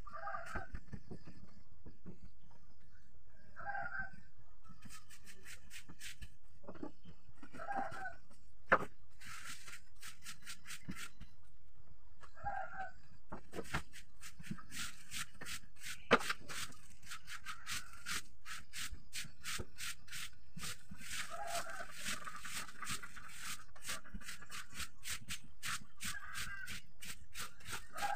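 A chicken calling in short clucks, about one every four seconds, over scratchy rustling from floor cleaning, with two sharp knocks near 9 and 16 seconds in.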